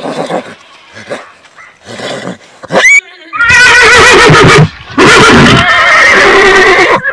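Loud horse whinnying: a few short neighs in the first half, then two long, wavering whinnies starting about three and a half and five seconds in.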